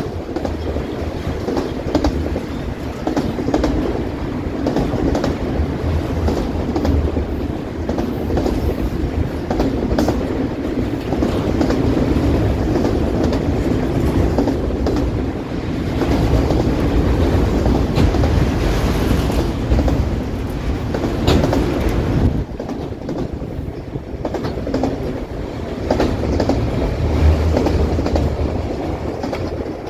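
Freight cars of CPKC train 112, mostly autoracks, rolling past close by: a steady, loud rumble of steel wheels on the rails with a rapid clickety-clack of wheels over the rail joints.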